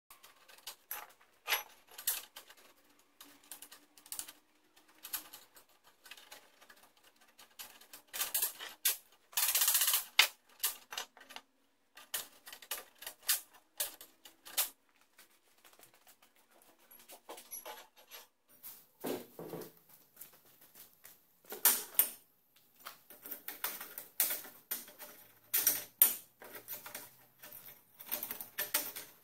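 Stainless steel tubes clinking and clacking against each other and against the steel frame as they are picked up and slid into the frame's punched holes: irregular sharp metallic clicks, with a longer scraping stretch about ten seconds in.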